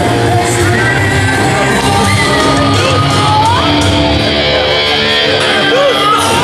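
Loud music with a steady bass, with crowd members shouting over it in a large hall.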